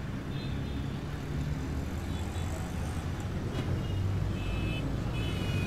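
Low, steady background rumble, with a few faint high tones coming and going.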